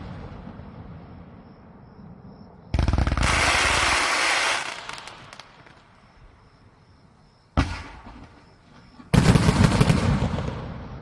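Fireworks going off in rapid volleys of bangs. A dense burst of quick-fire reports comes about three seconds in and lasts about two seconds, a single sharp bang follows near the middle, and another rapid volley starts about nine seconds in, with fading crackle between the bursts.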